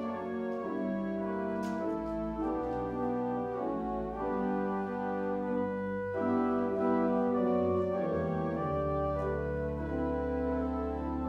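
Organ playing slow, sustained chords, with a deep held bass note coming in about two-thirds of the way through.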